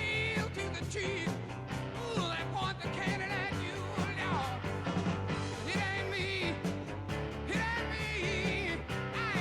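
Background rock-and-roll music with a singing voice and a steady beat.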